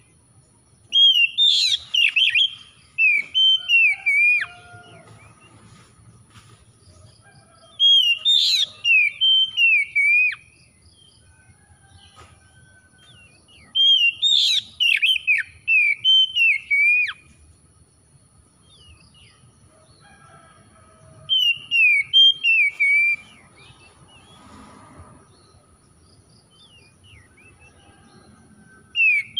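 Oriental magpie-robin singing: four loud phrases of quick whistled notes sliding up and down, each about three seconds long, repeated every six or seven seconds.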